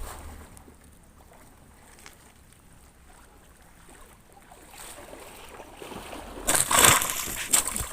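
Water splashing and sloshing in shallow pond water, after a few quiet seconds; the splashing starts about six and a half seconds in and grows loud near the end.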